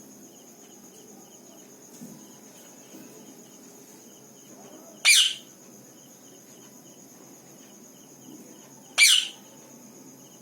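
Pet parrot giving two short, sharp screeches about four seconds apart, over a steady high insect drone and faint cricket chirping.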